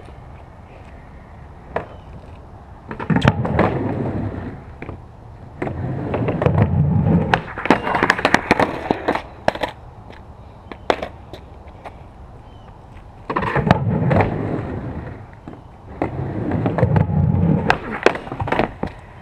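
Skateboard wheels rolling over rough concrete in repeated runs, broken by sharp clacks of the board and scraping as it hits and grinds along a wooden pallet ledge. Scattered single clacks of the board fall in the quieter gaps between runs.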